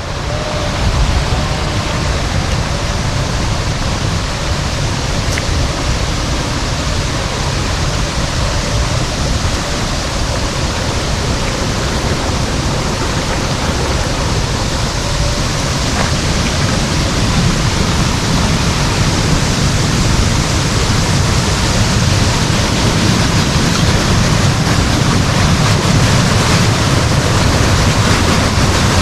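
Peguche waterfall rushing: a loud, steady, even wash of falling water with no breaks.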